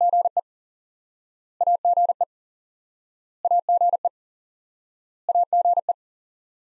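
Morse code tone sending the abbreviation AGE (·– ––· ·) four times at 40 words per minute: four quick bursts of beeps on one steady pitch, about two seconds apart.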